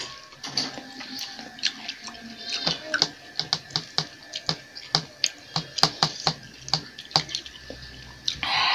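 Eating at close range: metal spoons and forks clicking irregularly against ceramic bowls, two or three clicks a second, with mouth noises from chewing noodles. A short hiss near the end.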